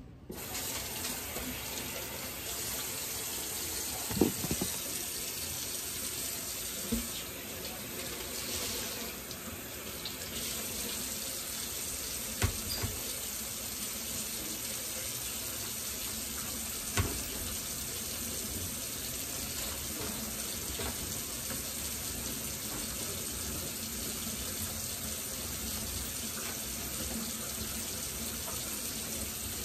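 Kitchen tap turned on and running steadily into the sink. A few sharp knocks sound against it now and then.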